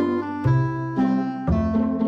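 Background music: plucked notes over a bass line, with a new note about every half second.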